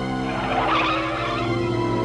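Cartoon background score of held low notes, with a short rushing noise effect laid over it in the first second or so.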